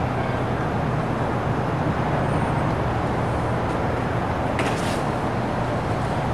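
Steady outdoor background noise: a constant low rumble and hum with hiss over it, of the kind that distant road traffic makes. There is a brief scuff or click about four and a half seconds in.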